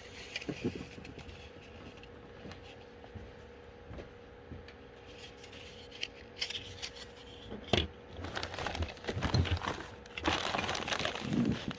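Model kit parts and packaging being handled, mostly quiet: a single knock about two-thirds of the way through, then crinkling and rustling near the end. A faint steady hum sits under it.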